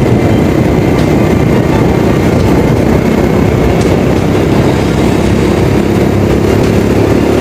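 Steady engine and road noise from a moving vehicle, heard from on board.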